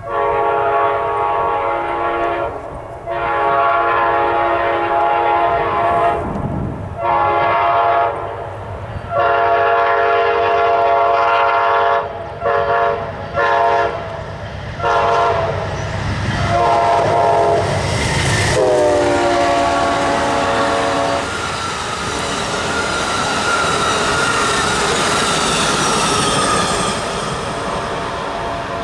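Amtrak GE P42DC locomotive's K5LA five-chime horn sounding a long run of blasts, some long and some short. The last blast drops in pitch as the locomotives pass, then the Superliner cars roll by with steady wheel clatter.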